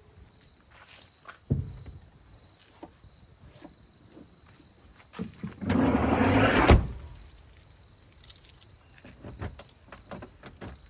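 Insects trilling steadily in the rainforest. About a second and a half in there is a thump, and about six seconds in a louder rough rumble of about a second ends in a sharp clack, followed by small clicks and knocks of handling.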